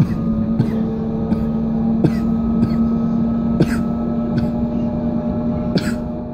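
Alstom RegioCitadis tram heard from inside while running: a steady drive hum with a faint whine that creeps up in pitch, and irregular clicks and knocks from the wheels on the track, a few of them sharper with a brief hiss.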